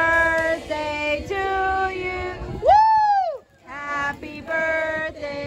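Singing, in long held notes, with one note that slides up and back down about three seconds in.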